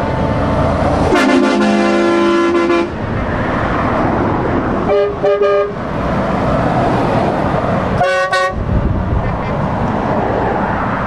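Heavy trucks driving past with steady engine and tyre noise, broken by truck horn blasts. A long multi-note blast comes about a second in and lasts nearly two seconds, short toots follow around five seconds, and a half-second blast comes near eight seconds.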